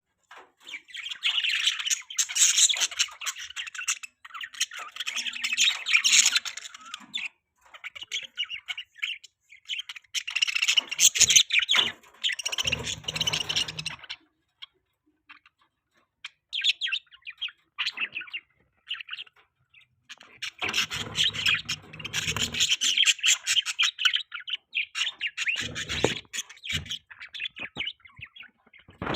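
Budgerigars chirping and chattering rapidly in spells of a few seconds, with short pauses between. Twice a low rumble sounds under the chatter.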